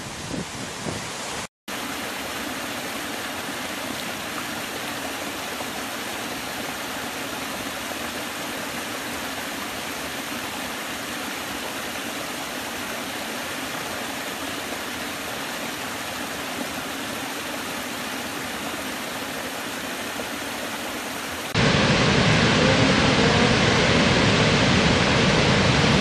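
Waterfall: a steady, even rush of falling water. It cuts out for a moment about a second and a half in, and about 21 seconds in it switches abruptly to a louder, fuller rush.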